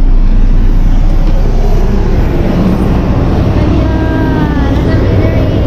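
Loud, steady engine and machinery rumble on an airport ramp, with a faint voice about four seconds in.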